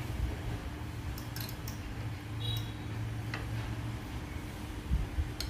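Faint clicks and a small clink of metal kitchen tongs and a plate being handled, over a steady low hum, with two soft low thumps near the end.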